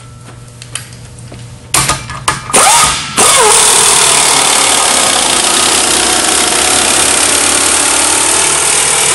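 Pneumatic impact wrench driving a Pneu-Tek impact-driven tire demounter bar around the rim of a 14.00-24 grader tire to lift the bead off. A few short bursts about two seconds in, then it runs steadily from about three seconds in.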